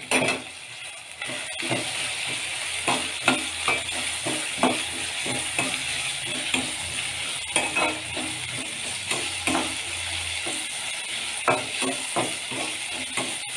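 Flat metal spatula scraping and clacking against a metal kadai in repeated irregular strokes as chopped onion, tomato, green chilli and green peas are stir-fried in oil, over a steady sizzle.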